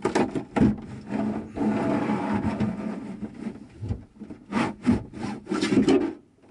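A large blue panel being worked loose and pulled up out of a motorhome shower cubicle, scraping and knocking against the cubicle walls. A long rubbing scrape runs through the middle, then a few sharp knocks near the end before it stops abruptly.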